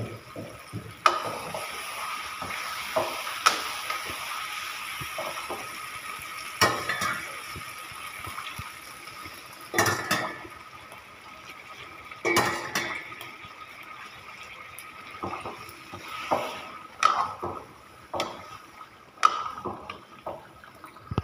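Thick masala curry simmering in a kadhai on a gas burner, a steady bubbling hiss with sharp pops and knocks every few seconds. Near the end a ladle stirs and scrapes through it.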